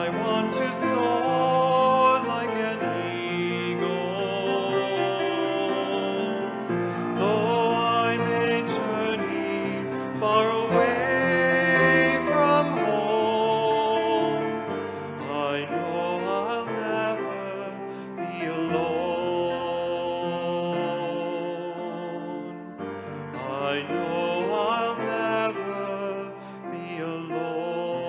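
Hymn music played on piano and cello, slow and sustained, with the string line gliding between notes.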